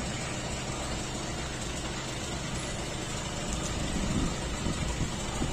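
Car engine idling steadily: a low, even hum.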